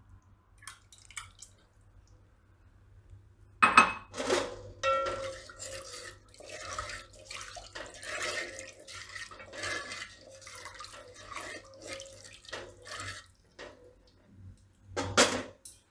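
A ladle stirring watery, spiced yogurt mixture in a metal pot: sloshing liquid and irregular scraping and clinking of the ladle against the pot. It starts with a sharp knock a few seconds in, and there is a louder clink near the end.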